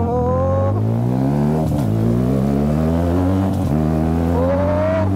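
Benelli TNT 300 parallel-twin engine through an SC Project aftermarket exhaust, pulling hard as the bike accelerates. The pitch climbs and falls back several times as it shifts up through the gears.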